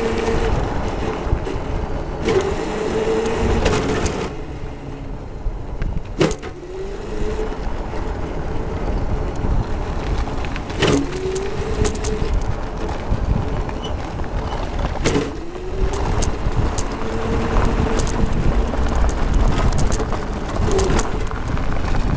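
Homemade electric go-kart under way: its electric motor and chain drive whine steadily over tyre and road rumble, the pitch dipping and climbing with speed. Three sharp clacks come through, each followed by the whine climbing again as the kart picks up speed.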